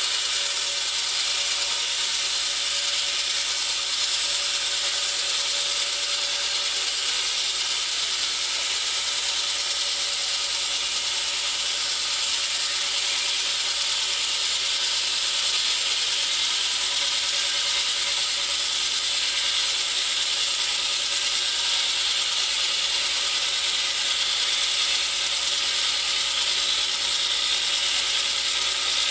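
Excavator-mounted Echidna tunnel saw wet-cutting a concrete block with its large diamond blade: a steady, high-pitched grinding of the spinning blade biting into the concrete, with a few steady tones beneath.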